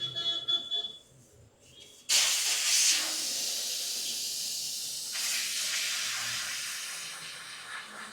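Compressed air hissing out in a sudden loud rush about two seconds in, then a steady hiss that slowly fades. A short pitched sound is heard just before it, in the first second.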